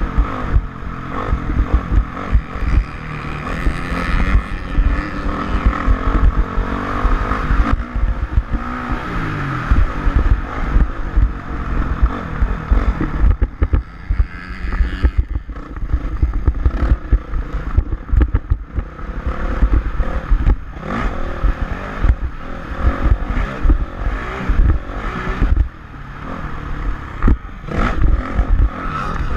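A Honda CRF450R's single-cylinder four-stroke engine revving up and down as the motocross bike is ridden around the track, with heavy wind buffeting on the microphone and clattering from the bike.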